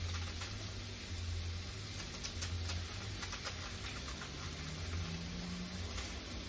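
Bacon, sausages and cabbage frying in oil in a pot: a faint, steady sizzle with small crackles, and cabbage leaves rustling as they are torn apart and dropped in. A low hum runs underneath.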